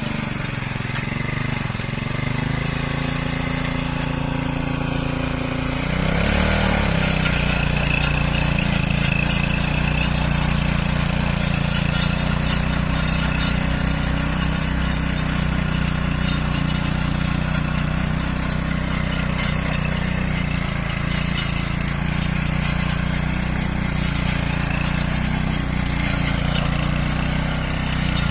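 Engine of a mini cultivator (walk-behind tiller) running steadily. About six seconds in it speeds up and gets louder, then runs on at that higher pitch.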